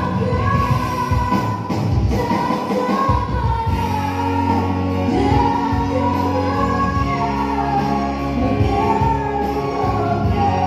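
A voice singing a melody in long held notes over steady instrumental accompaniment.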